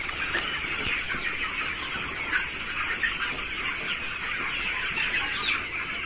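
A flock of 24-day-old broiler chickens calling: a steady, dense chorus of many birds.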